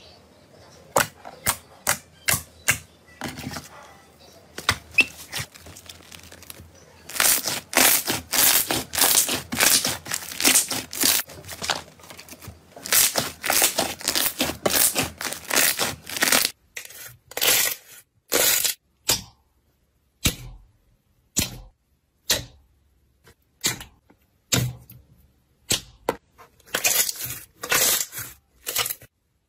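Slime being pressed, squeezed and stretched by hand, giving off rapid sharp pops and clicks. The clicks run densely through the middle, then come in separate bursts with short gaps toward the end.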